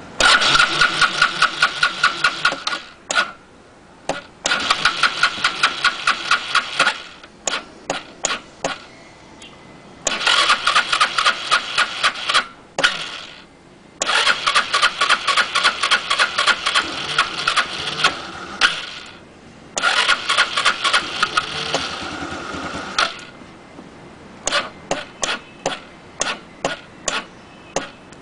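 SYM Xpro 100 scooter engine being cranked by its starter in five attempts of a few seconds each, a fast even pulsing that never catches into running: the scooter won't start. Between and after the attempts come single separate knocks.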